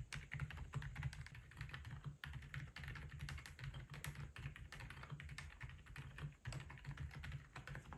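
Typing on an AULA F87 Pro mechanical keyboard fitted with Akko low-noise Penguin switches: a quick, unbroken run of keystroke clicks.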